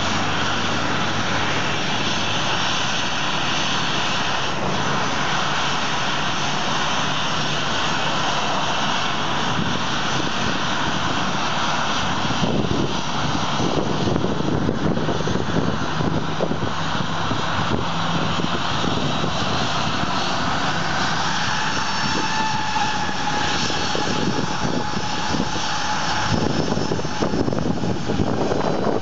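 Jet engines of a Boeing 737-800 (CFM56-7B turbofans) running at taxi power: a steady jet rush and whine that holds level throughout.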